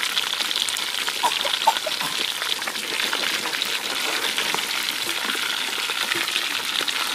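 Whole red tilapia deep-frying in hot oil: a steady sizzle with fine crackling.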